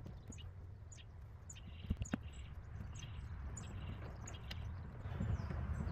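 Razor utility knife slowly slicing through a plastic fender liner: faint short clicks and scrapes, with two sharper clicks about two seconds in. Small birds chirp repeatedly in the background.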